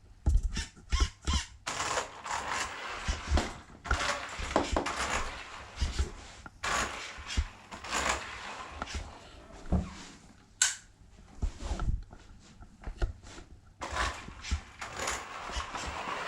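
Electric RC quad bike driving on a hard indoor floor in several short runs, its running noise broken by clattering clicks and knocks.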